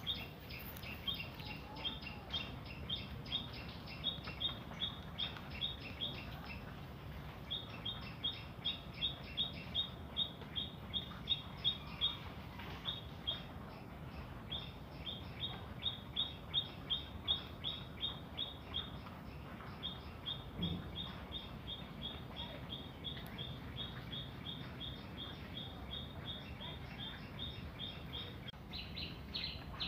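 A bird chirping over and over: short high chirps about three or four a second, in runs of several seconds with brief pauses, turning louder and more varied near the end. A faint low hum of room noise lies beneath.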